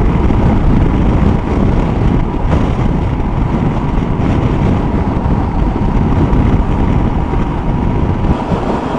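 Motorcycle riding at road speed: a loud, steady rush of wind on the microphone over the engine and road noise, with a faint steady whine.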